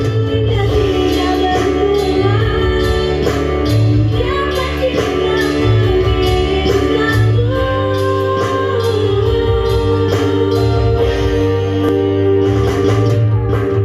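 Live music over a sound system: a singer with an electronic keyboard (orgen) backing, a steady beat and heavy bass.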